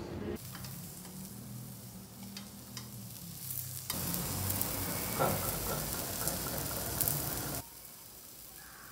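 Freshwater eel fillets sizzling on the griddle plate of a portable butane gas grill: a steady frying hiss that starts about four seconds in and cuts off suddenly near the end. Before it there is a quieter low hum.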